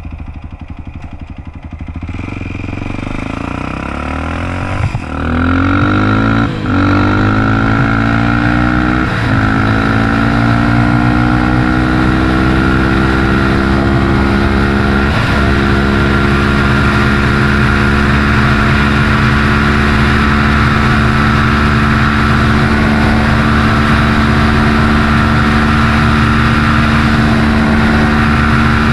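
Big-bore 440 Honda 400EX quad's single-cylinder four-stroke engine, fitted with an HMF muffler, pulling away from low revs and accelerating hard. It revs up through about four gear changes in the first fifteen seconds, then holds steady at high revs near top speed, with wind rushing over the microphone.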